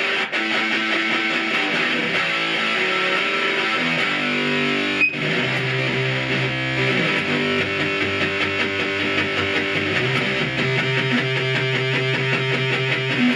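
Electric guitar played through the Noise Therapy FX Stomp Box Fuzz pedal, distorted sustained notes with several of the pedal's sounds stacked together into a thick, layered tone. A single short click about five seconds in.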